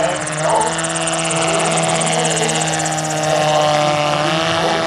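Giant-scale RC autogyro's electric motor (Hacker A150-10) and pusher propeller in flight during a low pass: a steady whine made of several tones, with one tone dipping slightly in pitch about three and a half seconds in.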